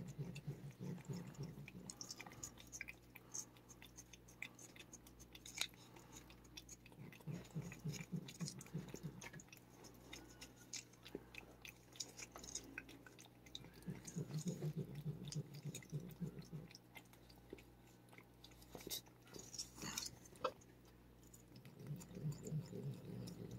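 Cat licking and lapping paste from a squeeze-tube treat held in a hand: faint, quick wet clicks of the tongue and mouth, with a brief low rumble about every seven seconds. The cat is eating willingly, which the keeper takes as a sign she is all right.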